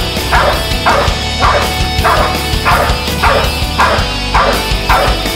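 Protection-trained dog barking at a decoy in a rapid, even series of barks, nearly two a second. Background music with a steady beat plays underneath.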